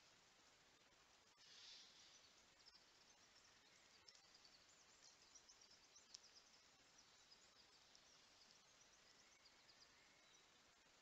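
Near silence: faint forest background hiss, with a soft brief rustle about two seconds in and scattered faint high ticks through the middle.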